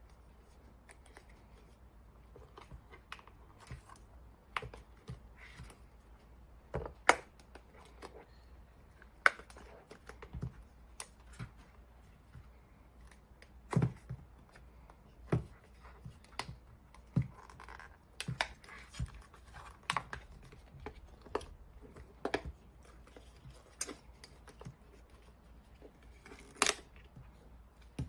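A protective case being pried and peeled off a handheld diagnostic scan tablet by hand: irregular clicks, taps and short rubbing scrapes as the case edges pop free and the tablet is turned over, the sharpest clicks about 7 and 14 seconds in.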